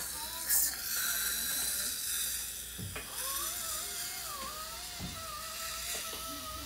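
Dental suction or handpiece at work in a child's mouth during a cleaning, a steady hiss with a short louder burst of hiss about half a second in. Faint background music with a wavering melody comes in about three seconds in.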